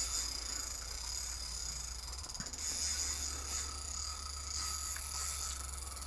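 Spinning reel clicking and whirring rapidly as line is worked against a big hooked fish.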